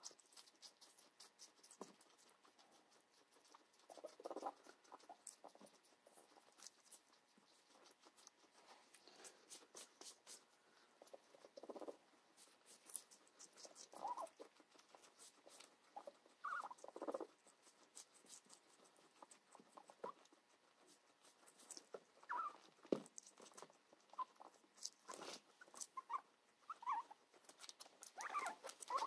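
Long-haired guinea pig chewing cucumber: faint, rapid crunching clicks, with a few soft rustles now and then.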